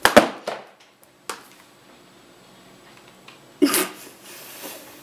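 A sudden rustle and bump of quick body movement, a single sharp click about a second later, and another short burst of noise a little before the end.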